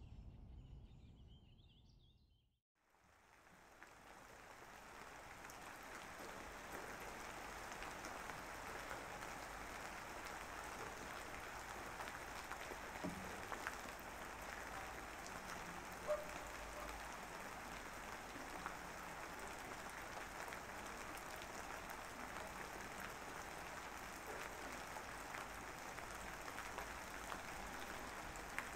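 Steady rain ambience with faint scattered drop ticks, fading in about three seconds in after a short fading sound and a moment's silence.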